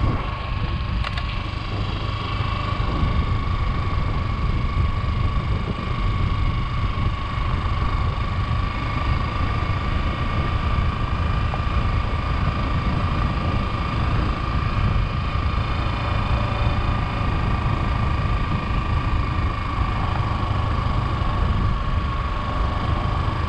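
Motorcycle engine running steadily under way, with wind and road rumble on the microphone and a thin, steady whine throughout.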